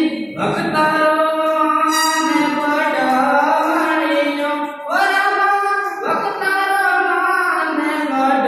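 A single voice singing a devotional bhajan to Ramsa Pir in long, held, wavering melodic lines, with short breaks between phrases.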